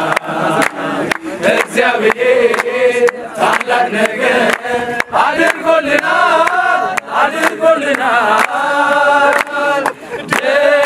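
A group of men singing together in unison, with rhythmic handclapping.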